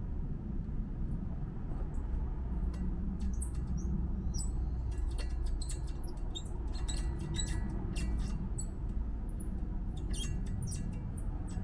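Many short, high-pitched squeaks and chirps at irregular intervals over a low steady rumble, with the engine off.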